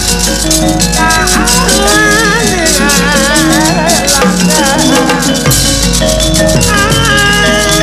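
Sundanese gamelan music of a wayang golek performance: metallophones and drums under a wavering, sustained melodic line, with a rapid metallic clatter of the dalang's kecrek plates throughout.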